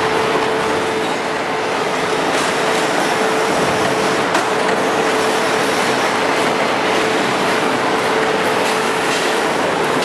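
Core veneer composer and plywood mill machinery running: a loud, steady mechanical noise with a constant hum and occasional faint clicks.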